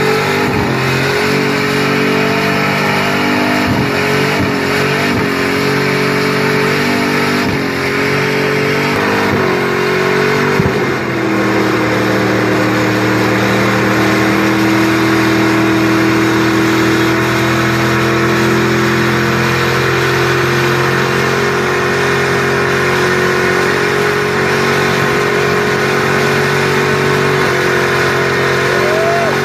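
Car engine held at high revs during a burnout on a wet track. The revs dip and pick up again several times in the first ten seconds or so, then hold steady until a brief rise near the end.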